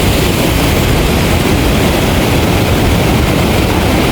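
Wind rushing over the microphone during a zip line ride: a loud, steady rush with a heavy rumble underneath.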